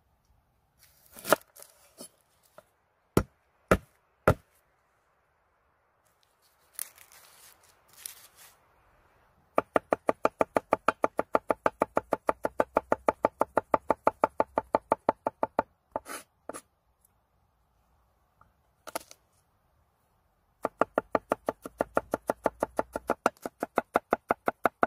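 Large chef's knife chopping garlic cloves on a wooden cutting board. A few single knocks come first, then two long runs of fast, even chopping strokes, several a second.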